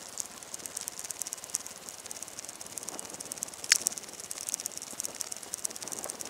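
Grass rustling and crackling with footsteps as someone walks through long grass, a dense run of small irregular ticks. One short, sharp squeak falling in pitch stands out a little past halfway through.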